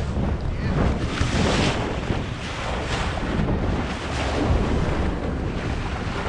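Fishing boat underway on the open ocean: a steady low engine rumble under rushing water and waves against the hull, coming in surges, with heavy wind buffeting the microphone.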